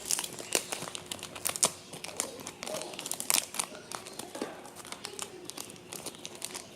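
A stiff foil Match Attax trading-card pack wrapper crinkling and tearing as it is worked open by hand, in sharp, irregular crackles.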